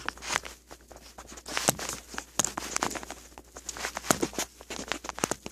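Irregular clicks, knocks and rustling of a camera being handled and positioned during setup, with several sharper taps spread throughout.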